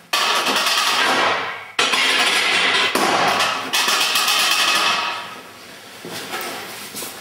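Barbell and weight plates clanking as they are handled at a bench-press rack. There are four sharp metal knocks in the first four seconds, each ringing on, then a few quieter knocks.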